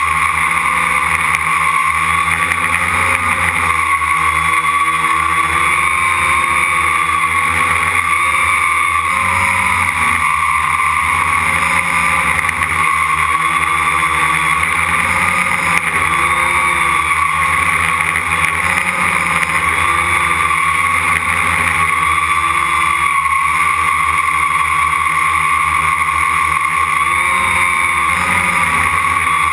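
Quadcopter's four brushless motors and propellers whining steadily, heard from on board the craft, the pitch wavering slightly up and down as the motor speeds are adjusted in flight.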